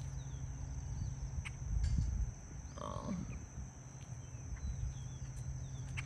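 Low rumble of wind on the microphone under a steady high insect trill, with one short animal call about three seconds in that falls in pitch.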